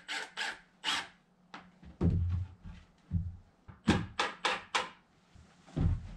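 Rough-cut board siding being nailed onto a wooden shed frame: sharp strikes, three in the first second and a quick run of four about four seconds in. Dull wooden thumps come between them as boards are set against the frame.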